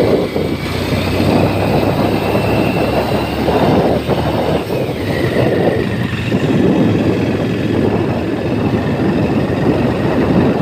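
Motorcycle engine running at a steady pace while riding, a constant low hum under rough rumble and wind noise.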